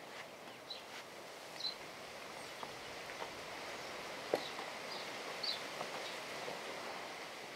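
Outdoor ambience with short high bird chirps several times over a steady background hiss, and soft squishing and tapping of fresh chhena curd being kneaded by hand in a steel plate, with a sharper tap about four seconds in.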